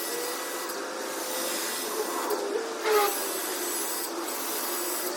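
Electric pressure washer running and spraying: a steady hiss with a faint wavering motor whine, briefly louder about three seconds in.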